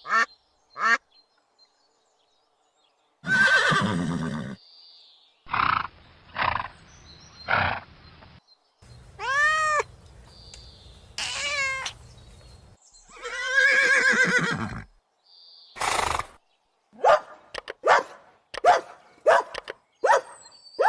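A run of farm-animal calls with pauses between them. Short duck quacks come at the start, then longer calls that rise and fall in pitch, and a quick string of short calls near the end.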